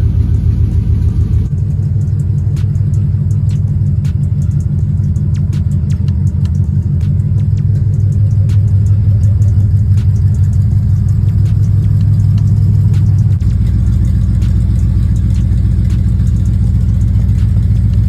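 Chevy 5.7 V8 running loud through newly installed headers. The engine speed rises about a second and a half in, is held there, and drops back toward idle about four seconds before the end.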